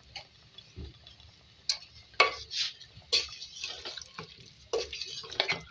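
A wooden spatula stirring chunks of bottle gourd and potato in a metal cooking pot, with a handful of irregular scrapes and knocks against the pot.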